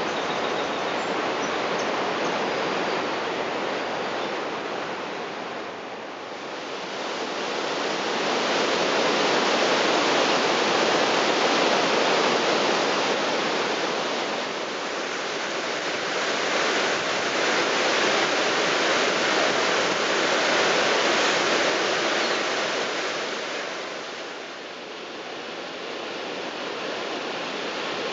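Rushing water of Niagara Falls and the Niagara River rapids: a steady, dense rush that dips briefly twice.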